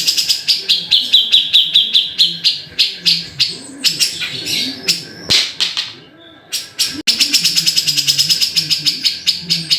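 Grey-cheeked bulbul (cucak jenggot) calling: a fast, even string of sharp, high chattering notes, about six or seven a second, breaking off for about a second around six seconds in.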